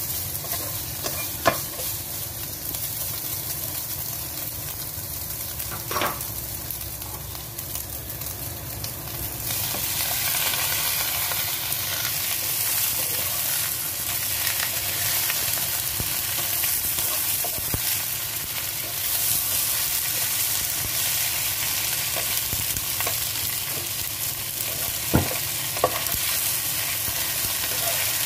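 Stir-frying in a nonstick pan: a steady sizzle of hot oil as eggplant, ground meat and green onions are tossed with a spatula, with a few sharp clicks of the spatula against the pan. The sizzle grows louder about ten seconds in.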